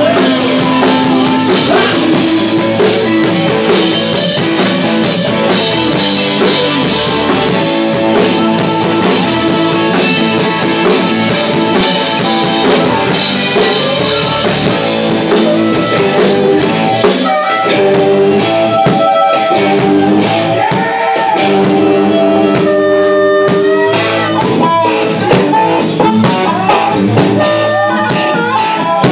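Live rock band playing loud blues-rock: electric guitars and bass over a steadily pounding drum kit, with a harmonica played into the vocal microphone.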